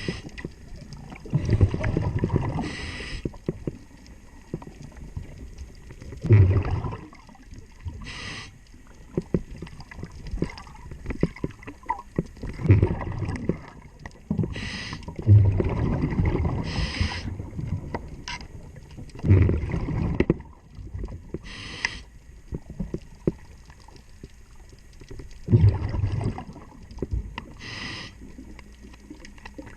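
Scuba diver breathing underwater through a demand regulator: a short hiss on each inhalation alternating with a low rush of exhaust bubbles on each exhalation, about one breath every six seconds, with faint clicks in between.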